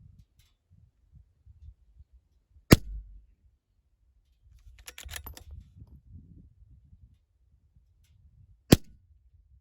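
Two sharp shots from a Ruger Precision Rimfire bolt-action .22 LR rifle, about six seconds apart. A quick run of small metallic clicks falls between them as the bolt is worked.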